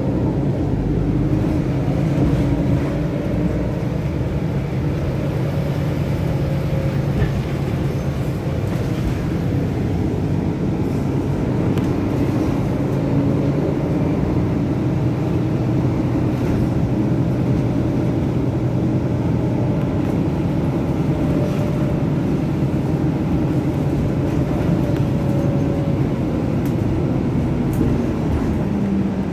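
Inside a moving city bus: steady engine and road noise, with a low hum that drifts slowly in pitch as the bus changes speed.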